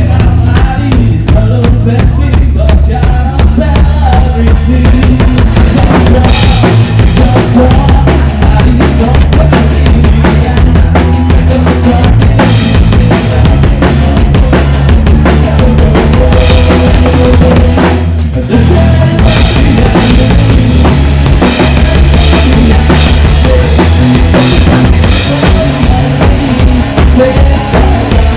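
A live rock band playing loudly, with the drum kit up front: kick drum, snare and rimshots driving under bass guitar and other pitched instruments. The low end drops out briefly about two-thirds of the way through, then the full band comes back in.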